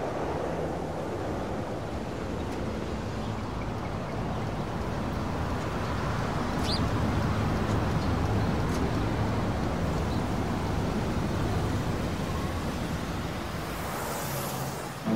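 Steady rushing noise, with a few faint high chirps in the middle and a rising whoosh near the end.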